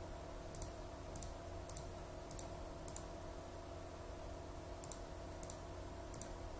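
Computer mouse clicking: about eight single clicks at uneven intervals, heard over a faint steady hum, as points of a running-stitch path are placed one by one.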